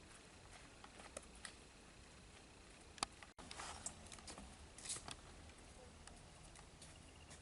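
Faint footsteps on a dirt trail: scattered light crunches and ticks, with one sharper click about three seconds in.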